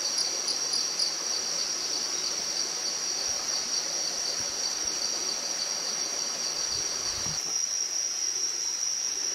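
Night chorus of crickets in tropical rainforest: a steady high-pitched trill, with a second, pulsing caller just below it that stops about seven and a half seconds in.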